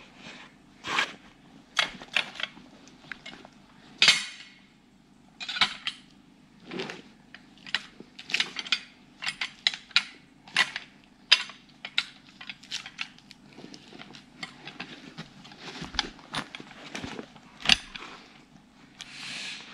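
Irregular sharp clanks and knocks of a steel Log Ox grabber and pieces of wood as the wood is picked up and moved, over a faint steady low hum.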